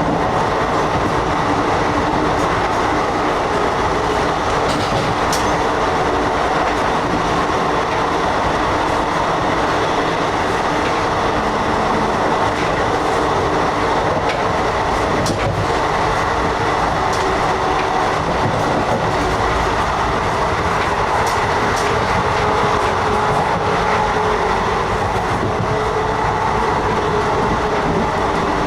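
Steady rumble of a running passenger train heard from inside an Indian Railways air-conditioned coach: wheels on track with occasional sharp clicks and rattles over a constant roar.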